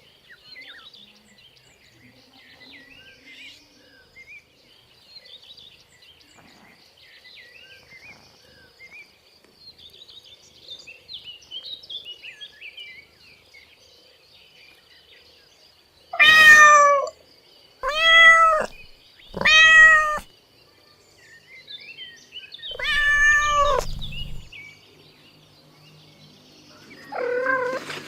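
Kittens meowing: a long quieter stretch of faint, high chirping mews, then a run of loud, arching meows, three close together and two more near the end.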